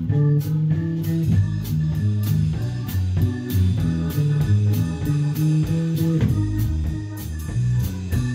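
Instrumental rock band music: a prominent electric bass guitar line over drums and cymbals, with keyboard.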